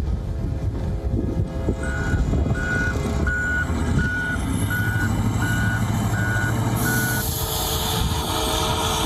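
A heavy vehicle's reversing alarm beeps eight times at an even pace, about one and a half beeps a second, over the low running of its engine. A loud hiss comes in near the end as the beeping stops.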